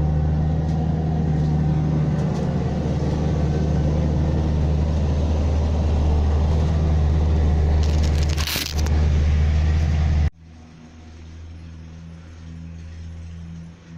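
Diesel engine of a compact earthmoving machine running steadily under load, with a short hiss about eight and a half seconds in. About ten seconds in the sound cuts off abruptly to a quieter, steady engine hum.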